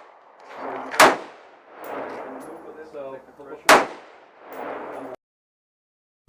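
Two rifle shots fired about two and a half seconds apart, each a sharp, loud crack, with quieter, longer booms of gunfire or echo in between. The sound cuts out abruptly about five seconds in.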